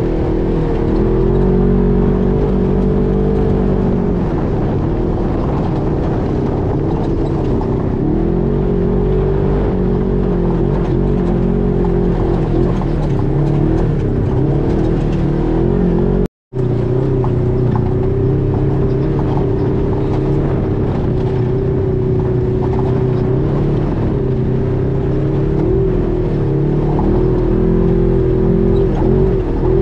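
UTV engine running while driving, its pitch drifting up and down a little with the throttle. The sound cuts out for a split second about halfway through.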